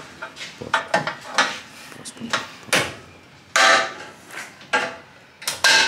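A hammer striking the sheet-steel front radiator support of a car's body, a string of irregular sharp metallic knocks that break the spot-welded section loose. Several louder blows come near the end.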